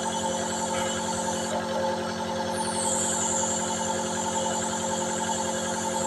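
Nebulizer air compressor running with a steady, unchanging hum.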